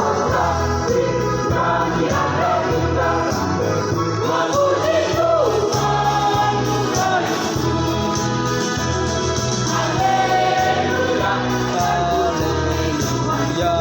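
Church choir singing a hymn in several voices over an instrumental accompaniment with low bass notes that change about once a second.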